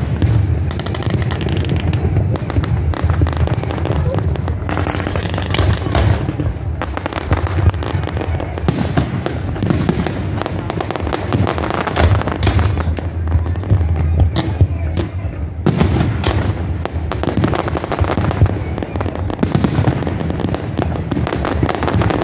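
Fireworks display: aerial shells bursting in quick succession, with dense crackling from the crackle stars.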